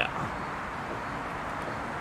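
Steady background hiss of room tone with no distinct clicks, knocks or tool sounds.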